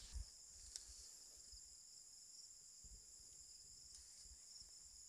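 Steady, high-pitched chorus of night insects trilling in the swamp grass, faint, with a few soft low bumps from handling.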